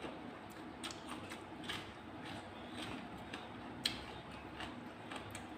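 Eating sounds: scattered light clicks and taps from food, shells and utensils while eating spicy seafood salad with blood cockles, with one sharper click about four seconds in.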